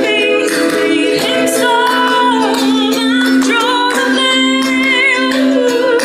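A woman singing live into a microphone, accompanying herself on a strummed ukulele, with long held notes with vibrato over a steady chord.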